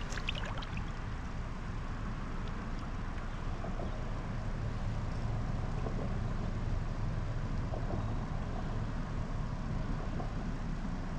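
Steady low rush of stream water flowing around a trout being held in the current for release, with a few small splashes in the first second.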